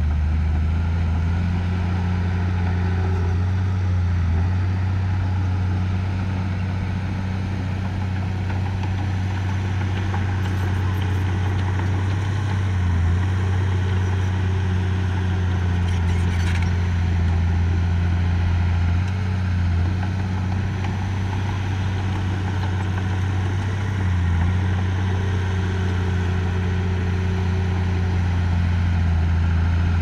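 Diesel engine of heavy earthmoving equipment running steadily with a low, even drone, dipping briefly a few times.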